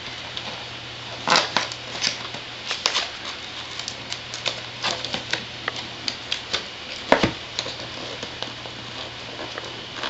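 Cardboard tripod box being opened by hand: irregular clicks, scrapes and crackles of flaps and packaging, with a few sharper snaps about a second and a half in, around three seconds, and just after seven seconds.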